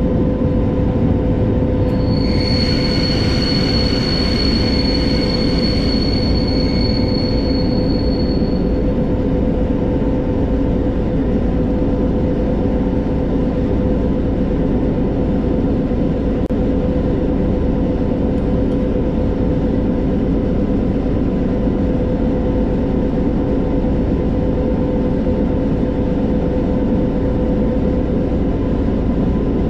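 V100 diesel locomotive running steadily with its engine drumming under the rumble of the wheels on the rails. A high-pitched wheel squeal, with several overtones, sets in about two seconds in and dies away after about seven seconds.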